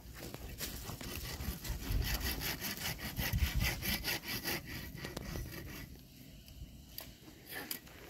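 Dry twigs of an old bird's nest rustling and crackling in a rapid scratchy rhythm as it is handled close to the microphone, with a couple of dull low bumps about two and three and a half seconds in.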